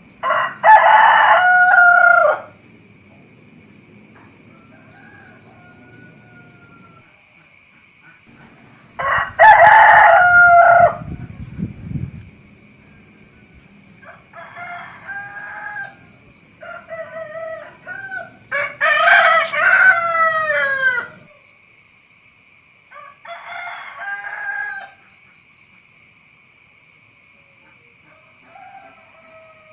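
Rooster crowing: three loud crows, each about two seconds long, at the start, about nine seconds in and about nineteen seconds in, with quieter, shorter calls between them. A steady high pulsing chirping runs behind it.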